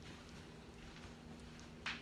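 Quiet kitchen room tone with a faint steady hum, and one short sharp knock near the end.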